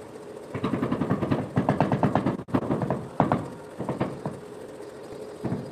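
A hammer tapping a cement floor tile down into its mortar bed to settle it level. A fast run of taps comes first, then a few slower single knocks.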